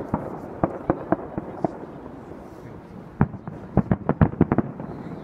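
Fireworks shells bursting in the sky: a quick run of sharp bangs in the first second and a half, a short lull, then a denser volley of bangs from about three seconds in.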